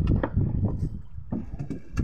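Gillnet being hauled over a wooden fishing boat's gunwale: irregular low thumps and rustling handling noise, with a few sharp knocks, the loudest near the end.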